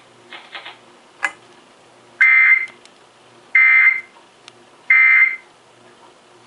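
Emergency Alert System end-of-message signal: three identical half-second bursts of harsh digital data buzzing, evenly spaced a little over a second apart, marking the end of the alert. A short click comes just before them, about a second in.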